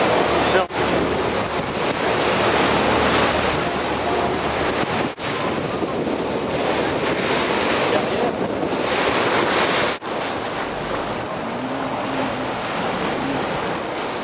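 Wind buffeting the microphone over the rush of water along the hull of a moving boat, a steady noise broken by brief dropouts about a second in, around five seconds and at ten seconds.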